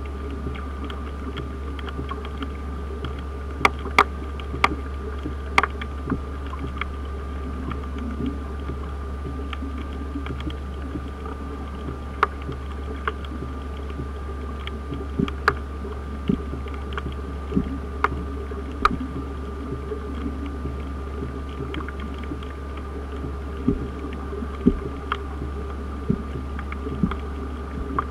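Underwater ambience recorded by a camera in the water over a coral reef: a steady low hum with a faint constant tone, and irregular sharp clicks about once a second.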